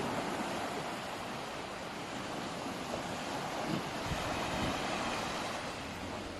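Sea waves washing, with wind buffeting the microphone.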